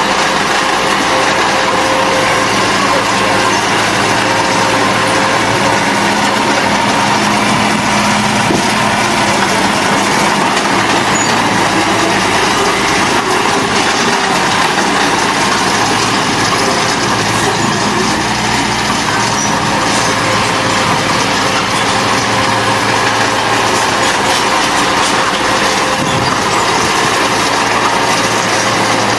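Diesel engines of earthmoving machines running steadily under load, a constant engine drone with a dense mechanical noise over it.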